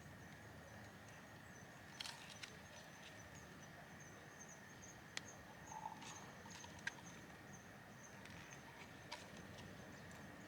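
Near-silent background hiss with a handful of light, scattered clicks and taps.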